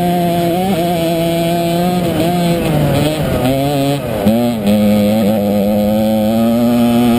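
Kart engine running hard on track, heard from the driver's seat. The revs drop from about two to four seconds in as the kart slows, then climb steadily again as it accelerates.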